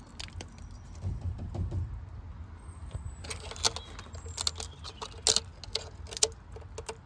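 Scattered sharp clicks and light knocks, with a brief low rumble about a second in.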